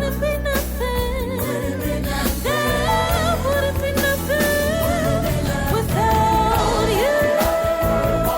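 Music: a gospel-style song with a singer holding long, wavering notes over bass and drums.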